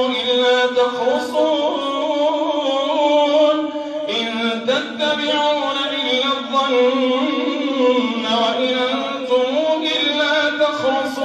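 A man's voice reciting the Quran in a drawn-out melodic chant through a microphone, the phrase held and ornamented, with a short pause and a new phrase about four seconds in.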